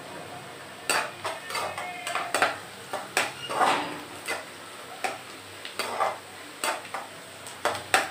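A perforated metal spatula scraping and clinking against the sides and bottom of an aluminium kadai as onions and green chillies are stirred in oil. The strokes come irregularly, starting about a second in.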